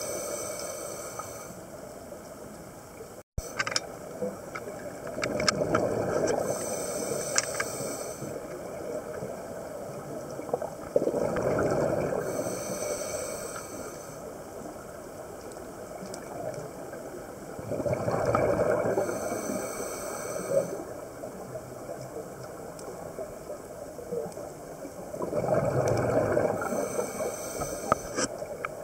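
Scuba diver breathing through a regulator underwater: a rush of exhaled bubbles about every six to seven seconds, with a quieter hiss between breaths.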